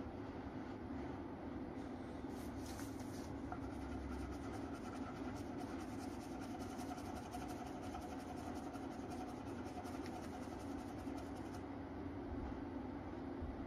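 Crayon rubbing fast over paper: a dense, scratchy scribbling that starts about two seconds in and stops near twelve seconds. It sits over a steady room hum.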